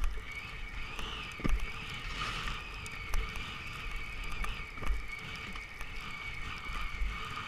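Skis sliding and turning on snow at speed, a steady hiss with wind on the microphone. Low thumps come about every one and a half seconds as the skis ride over bumps.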